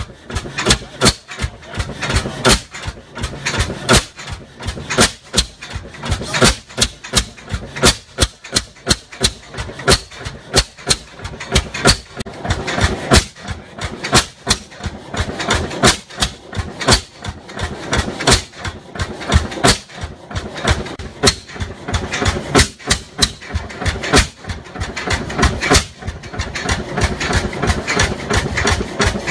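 50 hp Superior single-cylinder, horizontal sideshaft four-stroke gas engine with twin 7-foot flywheels, running slow with a steady train of sharp, regular beats.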